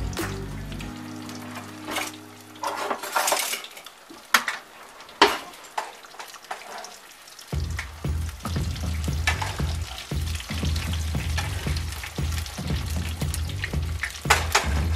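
Battered fish fillets deep-frying in hot oil in a skillet, a steady crackling sizzle with sharp spattering pops, the loudest about four and five seconds in.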